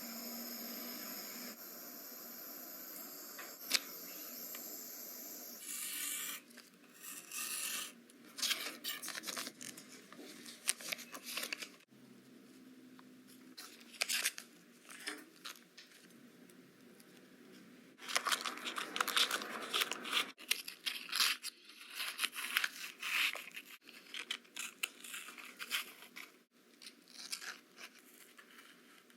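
Paper and thin card being handled at close range: rustling, scraping and tearing, with snips of scissors, in many short bursts. The first six seconds hold a steady hiss with faint high tones.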